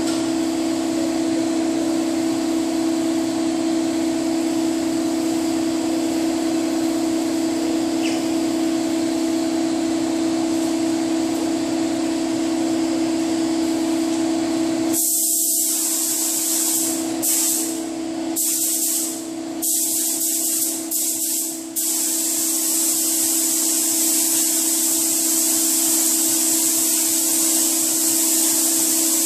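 A steady machine hum runs throughout. About halfway through, a compressed-air paint spray gun starts hissing as its trigger is pulled. It goes in several short on-off bursts at first, then hisses continuously while paint is sprayed onto the car body parts.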